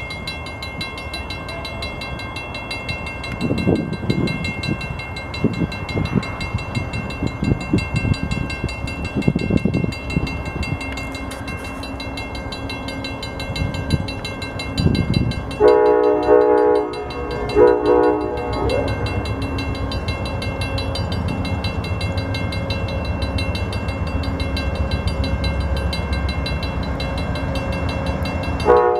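Amtrak P42 diesel passenger locomotive on the move: uneven low thumps and clatter of the train at first, then its air horn sounds a long blast followed by a short one past the middle, with another blast starting right at the end. A low engine rumble grows steadily over the last ten seconds as the locomotive approaches.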